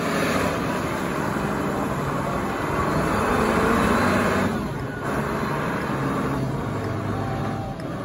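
Large Caterpillar forklift's engine running as the forklift drives and turns, with a brief dip in the sound about halfway through.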